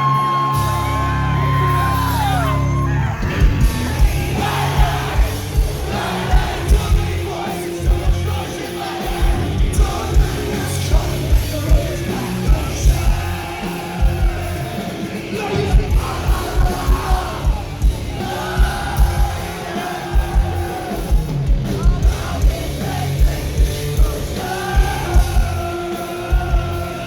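Live rock band playing with a singer: a long held sung note opens, then from about three seconds in the drums come in with fast, driving kick-drum beats under the guitars and vocals.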